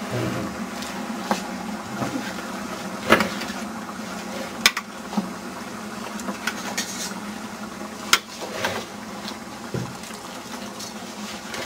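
A wooden spoon stirring sliced raw tomatoes in a large aluminium stockpot, with several sharp knocks of the spoon against the pot's side, over a steady background hum.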